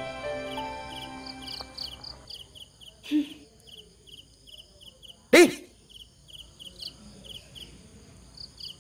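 Crickets chirping in a steady, rapid pulsing pattern, with soft background music ending about two seconds in. A single short, loud voice call cuts in about five seconds in.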